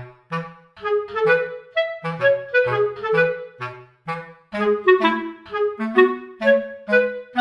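Light, bouncy music: a melody of short, quickly repeated pitched notes over a lower bass line, with a brief pause about four seconds in.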